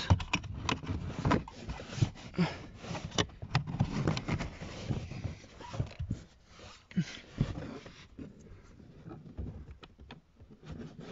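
Hand-fitted trim cover and plastic clips in a car footwell: a run of small knocks, clicks and rubbing as the felt-covered panel is lined up and the clips are pushed into their holes, thinning out after about eight seconds.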